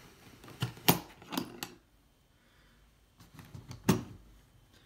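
Metal draw latches on a plastic toolbox being flipped open, making a few sharp clicks in the first second and a half. The plastic lid is then lifted, with small rattles and one more sharp clack near the end.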